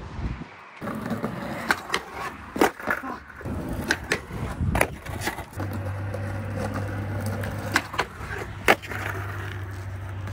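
Skateboard wheels rolling over rough concrete, broken by several sharp clacks of the board popping and landing. A steady low hum joins about halfway through.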